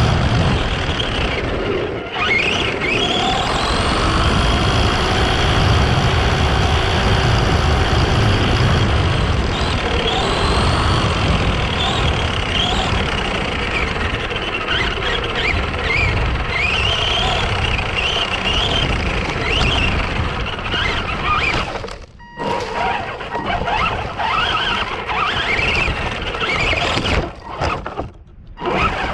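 Arrma Granite 4x4 RC truck being driven hard: its electric motor whines up and down in pitch with the throttle over a heavy rumble of tyres and terrain. The sound cuts out briefly about two-thirds of the way through and drops in and out near the end.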